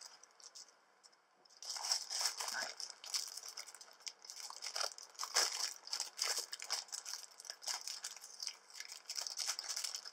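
Clear plastic bag crinkling and rustling as it is handled and opened, a dense run of sharp crackles starting about a second and a half in.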